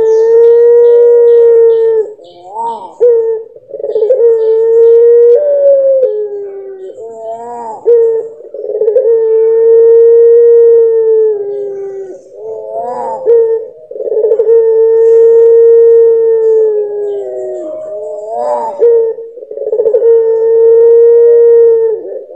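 Caged ringneck dove of the long-voiced puter pelung type, giving its long crying coo. It repeats about five times: a level held note of two to three seconds, each followed by short wavering notes.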